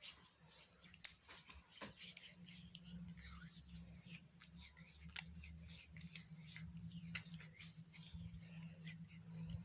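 Hands rubbing a gritty baking soda paste into the skin: a faint, uneven scraping and rustling with small clicks.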